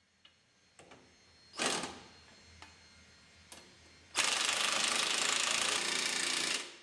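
Impact wrench tightening the nut on a pickup's lower rear shock absorber bolt. A short burst about a second and a half in, a few light clicks, then a steady run of rapid hammering for about two and a half seconds.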